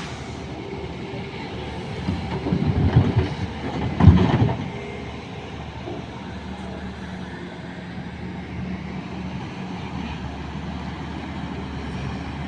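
Sany excavator's diesel engine running, with a louder stretch of irregular knocks and clanks about two to four seconds in; the sharpest knock comes about four seconds in. After that the engine settles back to a steady hum.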